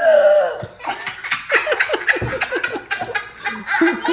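A drawn-out, forced fake burp voiced at a steady pitch for about a second, then several people laughing.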